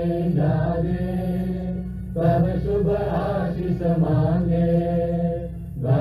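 Voices chanting or singing in long melodic phrases over a steady low drone. There are short breaks between phrases about two seconds in and again near the end.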